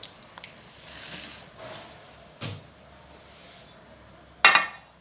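Kitchenware being handled on a counter: a few light clicks, a dull thump midway, then one loud sharp knock near the end.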